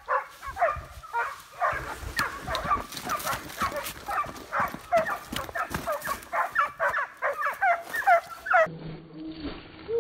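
A pack of hunting hounds yelping and baying on a boar drive, many short high calls overlapping in quick succession, breaking off near the end.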